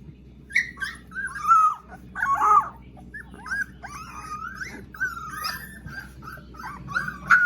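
Young puppies whining and whimpering: a continuous run of short, high, wavering cries that starts about half a second in.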